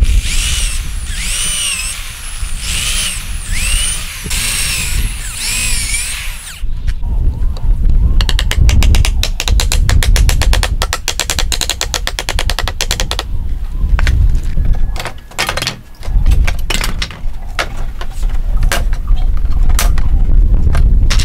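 An electric drill boring through pine slats into a wooden stump in several short runs, its whine rising and falling in pitch with each. Then a fast run of hammer blows drives nails into the slats, followed by scattered knocks and cracks as pallet boards are levered apart with a pry bar.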